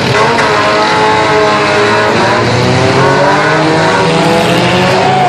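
Several demolition derby cars' engines revving together, their pitches rising and falling over one another.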